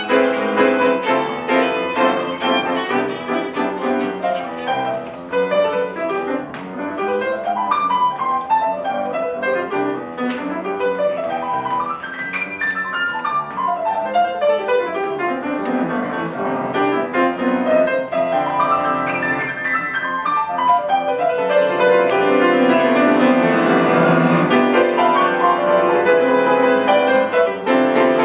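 Grand piano playing a solo in a jazz standard, with fast runs sweeping up and down the keyboard and fuller, louder playing in the last few seconds. A violin plays briefly at the start, then drops out.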